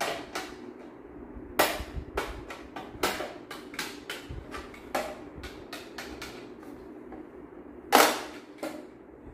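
Yellow plastic toy hammer tapping on a small plastic toy in a child's pretend repair game: irregular sharp taps, with two louder knocks about one and a half seconds in and near the end.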